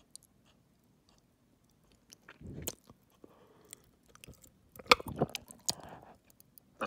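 Wet mouth noises close to the microphone: tongue and saliva clicks and smacks around a gummy candy in an open mouth. They begin about two seconds in and are densest near the end.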